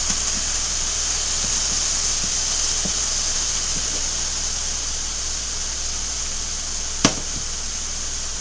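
Marinated sirloin tip steaks and onions with mushrooms sizzling in frying pans, a steady hiss that eases a little over the seconds, as the steaks' second side browns. About seven seconds in there is one sharp clack of a utensil against a pan.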